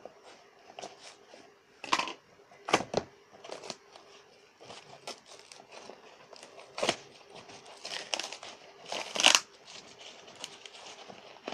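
Cardboard parcel being unpacked by hand: tape slit with a blade, cardboard torn and plastic wrapping crinkled, in irregular bursts of ripping and rustling, the loudest about nine seconds in.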